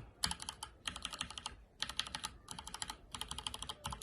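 Unlubricated Gateron Yellow linear switches on a mechanical keyboard, keys pressed in quick bursts of clacks with short pauses between the runs.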